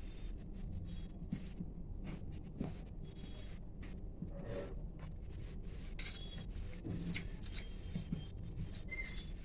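Light scrapes and small clicks of dough being handled and rolled out with a rolling pin on a stone rolling board, over a low steady hum. The clicks come thicker and sharper from about six seconds in.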